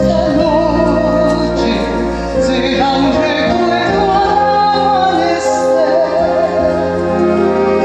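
A woman singing long held notes with wide vibrato over steady orchestral accompaniment.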